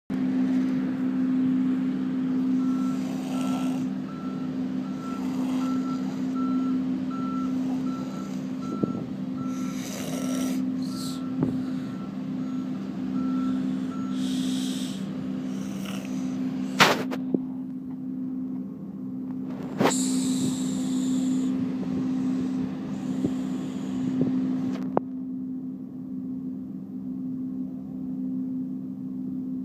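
A person snoring, with a breath every two seconds or so, over a steady low hum. A high beep repeats about once a second for the first half, and there are a couple of sharp clicks a little past halfway.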